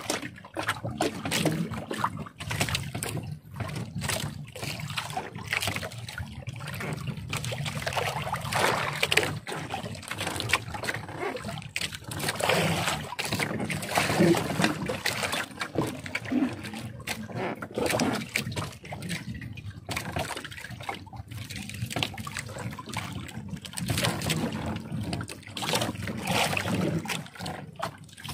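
Water trickling and splashing off a wet gill net as it is hauled over the side of a boat and fish are picked out of the mesh, in irregular small splashes and drips. A low steady hum runs underneath.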